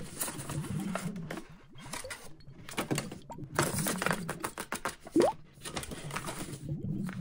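Paper rustling and crinkling as hands slide a paper cutout in and out of a paper sleeve, with light taps and scrapes of paper finger-claws, and a brief squeak of paper sliding about five seconds in.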